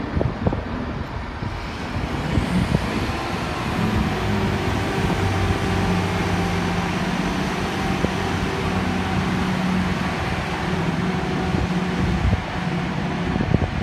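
Class 166 Turbo diesel multiple unit pulling out, its diesel engines running under power with a steady low drone that settles in about four seconds in, and a faint high whine rising in pitch early on.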